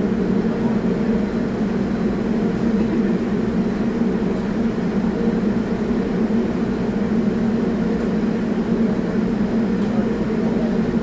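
R44 subway train standing still in the station, its onboard equipment giving off a steady, loud humming drone with no change.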